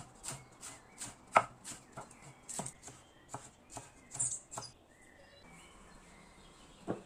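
Kitchen knife chopping food on a cutting board in steady strokes, about three a second, stopping after about four and a half seconds; one more knock comes near the end.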